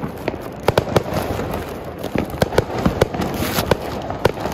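Firecrackers going off: a run of sharp bangs at irregular spacing, about three a second.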